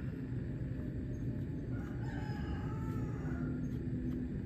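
A rooster crows once, faintly, about two seconds in, a single call lasting about a second and a half. Under it runs a low, steady background rumble.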